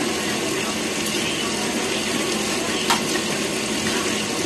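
Steady hissing background noise, with a single short click about three seconds in.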